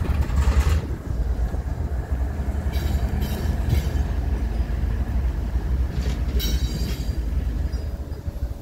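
BNSF ES44AC diesel-electric locomotive and its freight train rumbling as they pull away down the track, a steady low rumble that eases off near the end.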